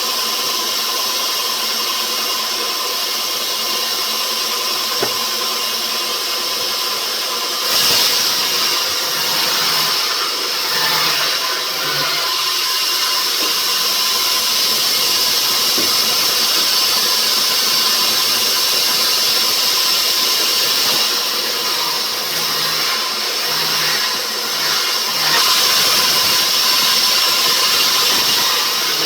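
Sawmill saw running steadily through rubber wood, a loud whining hiss with a constant high tone. It grows louder about eight seconds in and again near the end.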